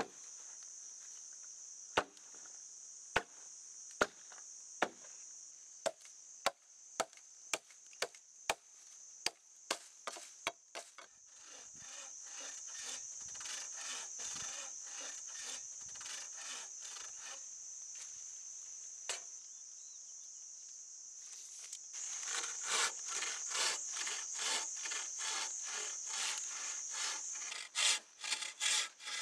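Sharp knocks of a blade striking bamboo, about one a second and then quicker. Then a hand saw cuts through a green bamboo culm in rhythmic back-and-forth strokes, about two a second, loudest near the end. A steady high drone runs underneath.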